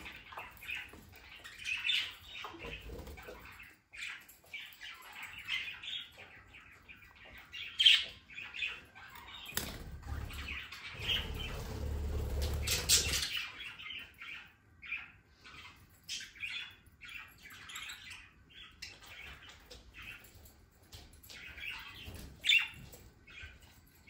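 A flock of budgerigars chirping in short, scattered calls, with wings flapping as birds fly in and land. A longer rustle of wings comes about ten to thirteen seconds in.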